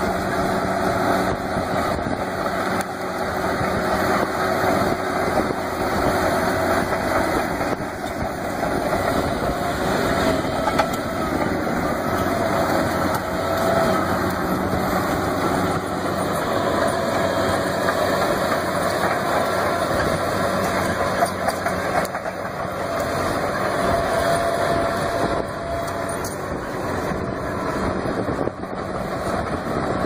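John Deere crawler bulldozer's diesel engine running steadily under load while it pushes brush and roots with a root rake, with a faint whine that wavers in pitch over the engine noise.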